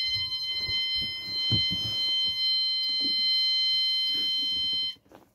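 Fire alarm sounder giving one steady, continuous multi-pitch tone for a bomb alert set off from the fire alarm panel; it cuts off suddenly near the end. A few low knocks sound beneath it.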